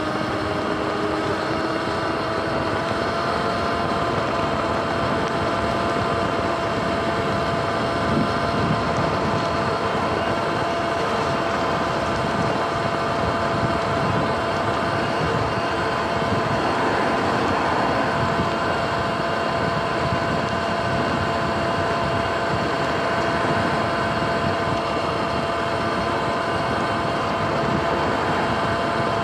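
Sur-Ron electric dirt bike's motor whining as it rides, rising in pitch for the first few seconds as it speeds up, then holding steady at cruising speed. Under it runs a constant rush of wind and tyre noise on the wet road.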